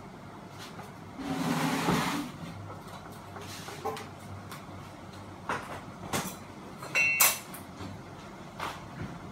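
Hands working at a ceiling fan's central housing: scattered clicks and knocks of parts being handled. There is a louder scraping rustle about a second in and a sharp click about seven seconds in.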